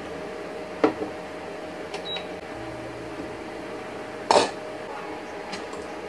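A short electronic beep from a Midea induction cooktop's touch controls about two seconds in, followed by a low steady hum as the hob starts heating. A sharp click comes near the start and a louder knock of cookware a little past four seconds.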